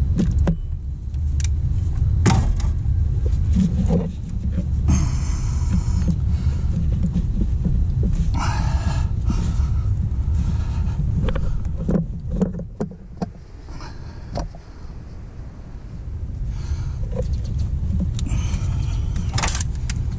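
Hand work on a power steering hose and clamp in a truck's engine bay: scattered clicks, small knocks and rustles over a steady low rumble. The rumble eases off about twelve seconds in and comes back some four seconds later.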